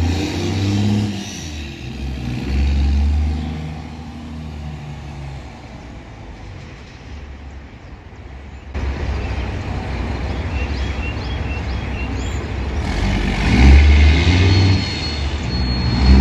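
12-valve 5.9 Cummins turbo diesel in a Dodge Ram pickup driving away, its engine note rising and falling as it pulls out and heads down the road. The note grows fainter, then swells loudly twice near the end.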